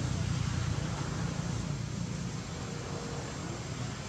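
Steady outdoor background noise: a low rumble with an even hiss over it, no distinct calls or knocks.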